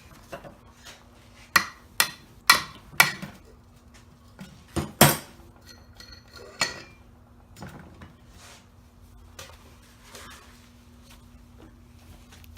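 Sharp metallic knocks and clanks of small-engine parts and tools being struck and handled while a Predator 212 engine is taken apart: about seven ringing hits in the first seven seconds, the loudest about five seconds in, then only faint clinks.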